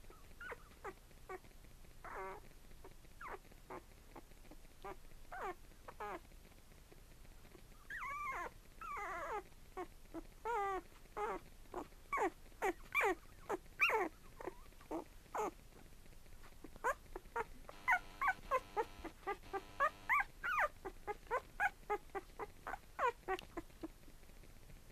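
Twelve-day-old Cavapoo puppies squeaking and whimpering in many short, high, wavering cries. The cries are sparse at first, then come in quick runs with a short lull midway.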